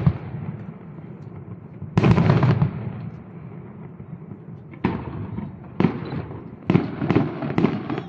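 Fireworks display: an aerial shell bursts with a loud boom about two seconds in, then two smaller bangs near the middle, then a rapid run of sharp bangs, about three a second, toward the end.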